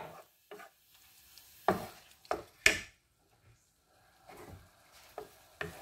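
Wooden spatula knocking and scraping against a non-stick frying pan as shrimp sautéing in butter are stirred: a handful of separate strokes, with a quiet stretch just past the middle.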